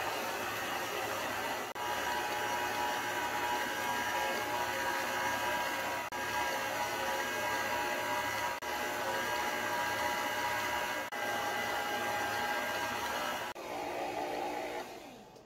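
Hamilton Beach stand mixer's motor running at medium speed, its paddle beating butter, sugar and eggs in a steel bowl: a steady whine with brief dropouts every couple of seconds. Near the end it turns lower and quieter, then stops.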